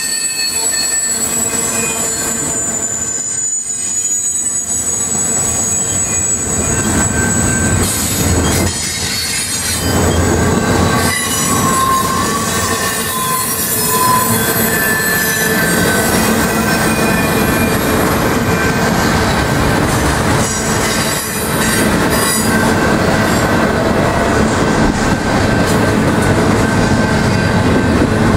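Double-stack intermodal freight cars rolling past, a steady loud rumble and clatter of steel wheels on rail. High thin squealing tones from the wheels ride over it, with a whistling squeal about halfway through.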